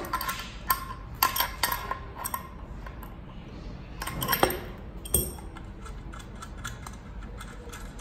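Small wrench clinking and clicking against the metal GPS antenna connector nut of a RAK7249 gateway as it is worked loose: a scattering of short metallic clinks, the loudest about four and a half seconds in, with lighter quick ticks later on.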